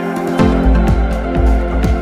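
Electronic background music: a sustained synth pad, with a deep kick-drum beat of about two hits a second coming in about half a second in.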